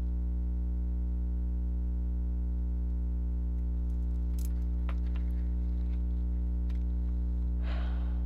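Steady low hum made of several constant tones. A few faint clicks come midway, and a brief soft rustle comes near the end.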